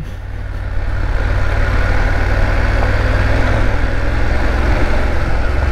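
BMW F 850 GS motorcycle engine pulling steadily in second gear at about 30 km/h on a dirt road, with wind and tyre noise over it. It grows a little louder during the first second, then holds steady.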